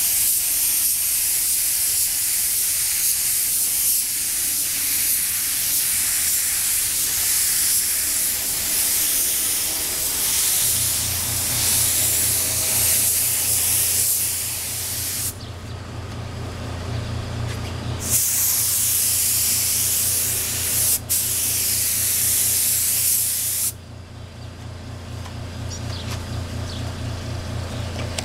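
Gravity-feed paint spray gun running on compressed air, spraying clear coat as a loud steady hiss. The hiss stops about halfway through, then comes back for a second burst of several seconds. A low motor hum starts partway in and runs on beneath it.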